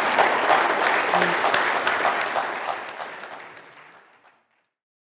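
Audience applauding in a hall, with dense clapping that dies away after about three seconds and is cut off shortly after.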